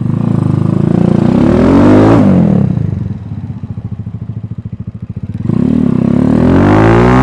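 Cleveland CycleWerks Ace motorcycle pulling away under acceleration. The revs climb for about two seconds, fall away sharply as it changes up, run lower and steadier, then climb again near the end.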